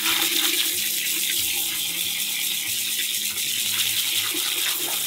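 Water spraying steadily from a garden hose nozzle into a plastic bucket half full of chicken feed, filling it to cover the feed with water.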